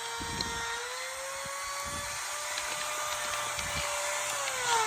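Small electric power-tool motor, such as a drill, running with a steady whine. It speeds up about a second in, holds, then winds down in pitch near the end.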